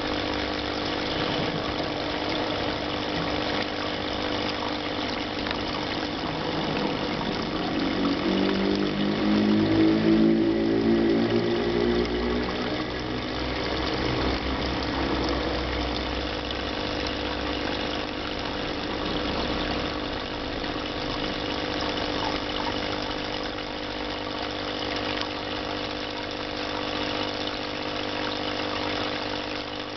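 Steady machine hum with fixed tones. Around ten seconds in, a louder pitched, engine-like sound swells, sweeps in pitch and fades away over several seconds.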